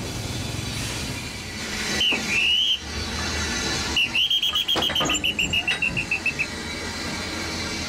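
A railway worker's hand whistle: one held blast that dips and rises in pitch about two seconds in, then a quick run of short pips about four seconds in, over a steady hiss of steam from the locomotive. These are whistle signals to the locomotive driver while the cars are being coupled; the length of the blasts tells the driver the distance.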